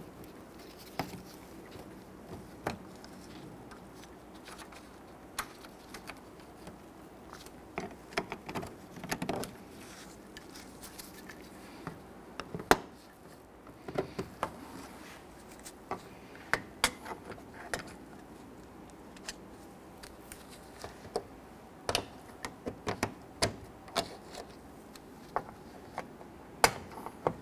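Plastic push-type retainer buttons being pressed in at the centre and pried up out of a plastic panel with a trim tool and pick: irregular light clicks and snaps, a few at a time, with small handling rattles between them.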